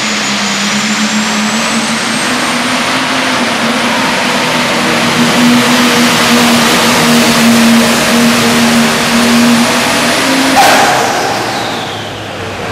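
Pro stock pulling tractor's turbocharged diesel engine at full power dragging a weight-transfer sled, a high whine climbing steadily in pitch over the run. About ten seconds in there is a sudden burst, then the sound falls away as the engine comes off power at the end of the pull.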